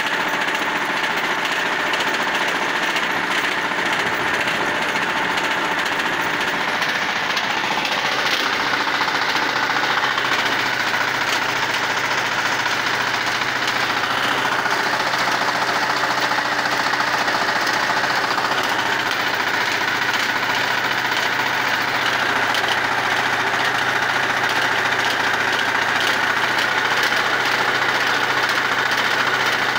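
Diesel engine of a Shifeng SF350L mini tractor running steadily under load, with a knocking diesel clatter, while it drives a 1.4 m rotary tiller through the soil.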